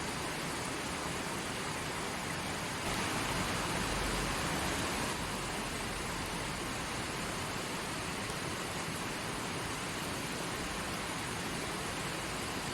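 Forest stream running, a steady rush of flowing water that swells slightly for a couple of seconds about three seconds in.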